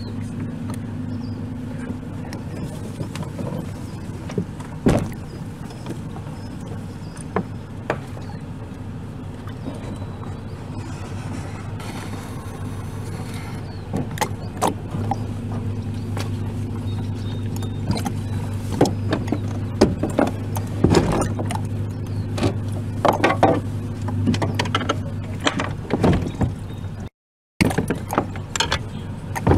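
Steady low hum of a kayak's Minn Kota electric trolling motor running. In the second half a run of knocks and clatters comes from the kayak's hull and gear against the dock.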